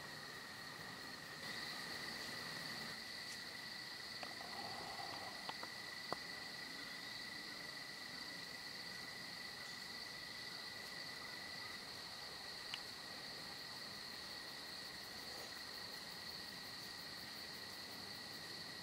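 Steady chorus of insects: two unbroken high-pitched trills that carry on without a break, with a few faint clicks in the first third and one more about two-thirds in.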